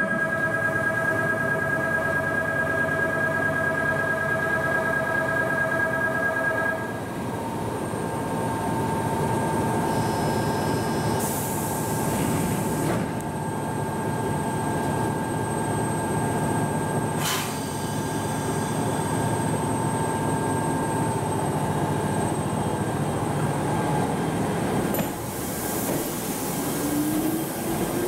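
Toyama Chihō Railway 10030-series electric train standing at a platform: steady tones for the first seven seconds, a single steady tone after that, and short hisses of air around the middle and again near the end. In the last second it starts to move, with a rising motor whine.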